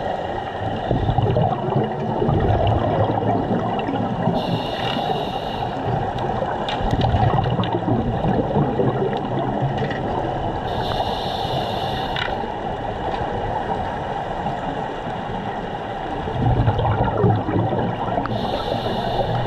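Scuba diving underwater: divers breathing through their regulators, a constant bubbling rumble with three short hisses of breath about six to seven seconds apart.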